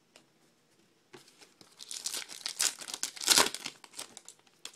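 Foil wrapper of a baseball card pack being torn open and crinkled by hand. It starts about a second in and is loudest just past the middle.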